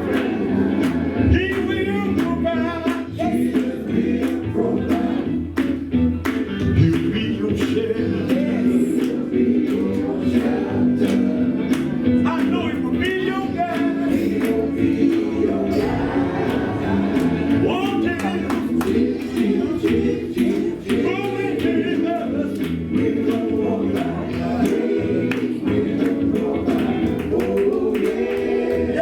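Live gospel music: singing over a full band with drums, played loud and continuous.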